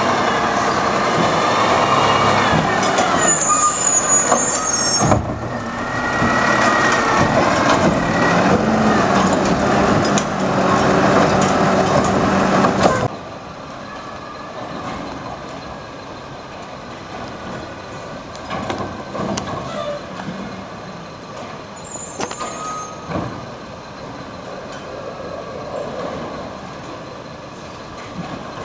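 Peterbilt 320 garbage truck with a Wayne Curbtender body running loud, its engine pitch sliding up and down, with short air-brake hisses. About thirteen seconds in the sound drops suddenly to a quieter truck running, with another brief air-brake hiss near the end.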